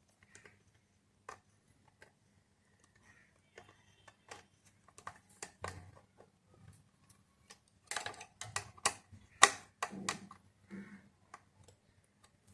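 Irregular small clicks and light knocks from hands working a CPU cooler and its fastenings into place, thickest and loudest near the end.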